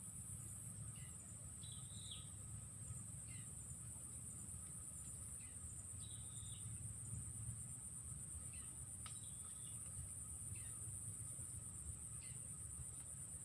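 Steady, high-pitched insect chorus with a bird giving short chirping calls every second or two, over a low background rumble.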